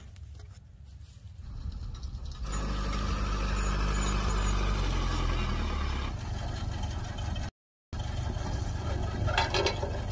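Crane truck's engine running steadily, swelling in level about two seconds in, with a few metal clanks near the end.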